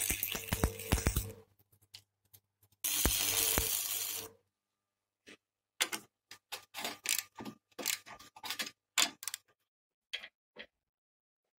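Electric arc welding crackling in two short bursts, the first about a second long and the second about a second and a half. After a pause comes a scatter of light metallic clicks and knocks as steel parts of a roller-and-bearing assembly are handled on a steel bench.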